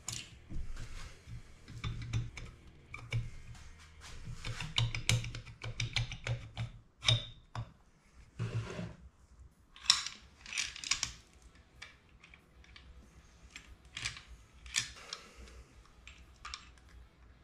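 Irregular clicks, clinks and light knocks of small metal tools and engine parts being handled and fitted while a motorcycle engine is put back together.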